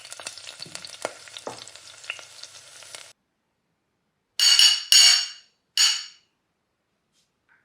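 Pot of jeera rasam bubbling and crackling on the stove while being stirred, a hissing sizzle that stops about three seconds in. Then three loud, short ringing clanks in quick succession.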